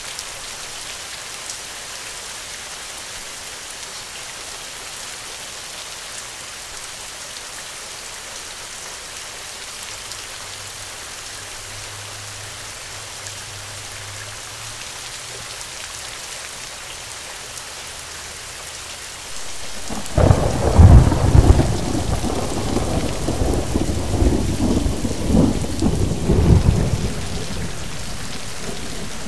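Thunderstorm: steady rain hissing, then about two-thirds of the way in a sudden loud thunderclap that rolls and rumbles in several surges for some seconds before easing back under the rain.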